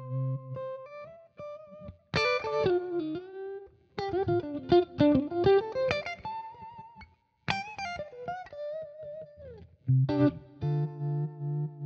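Electric guitar played through a J. Rockett Revolver vibe/boost pedal: a few ringing chords and quick single-note runs with short gaps between phrases. Near the end comes a held low chord that pulses evenly with the vibe effect.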